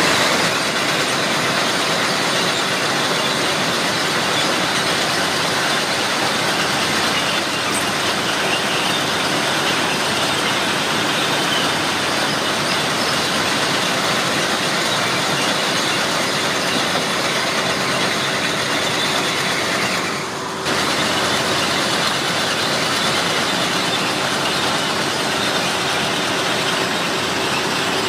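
Plasser & Theurer PM 1000 URM formation rehabilitation machine working on the track: a loud, steady mass of machinery noise with a faint steady hum under it, dipping briefly about two-thirds of the way through.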